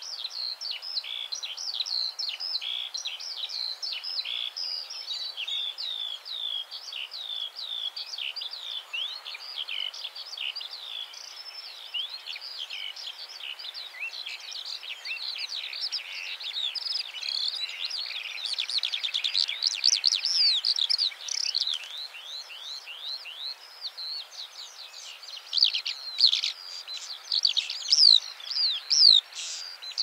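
Eurasian skylark singing its territorial song: an unbroken, rapid stream of high trills and warbling notes with no pauses, growing louder about two-thirds of the way in and again near the end.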